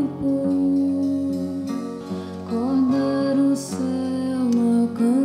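Live music: a woman's voice sings long held notes that slide up and down in pitch over instrumental accompaniment.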